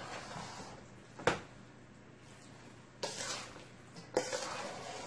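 A large spoon folding chunky potato salad in a stainless steel mixing bowl: one sharp clink of the spoon against the bowl about a second in, then two short spells of scraping and squishing through the mixture later on.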